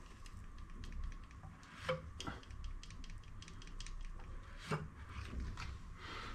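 Scattered small metallic clicks and knocks of hand tools working on a four-stroke scooter engine's valve rockers and adjusting screws, two of them louder, about two seconds in and just before five seconds. The engine is not running.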